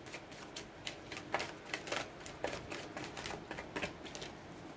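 Deck of oracle cards being shuffled by hand: a run of irregular light clicks, a few a second, as the cards flick against each other.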